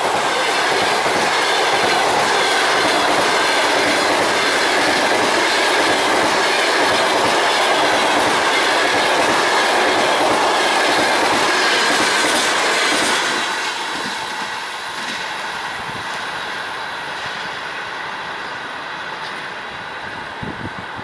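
Passenger train coaches passing close by at speed, their wheels running on the rails. The noise drops about two-thirds of the way through as the last coach goes by, then fades as the train moves away.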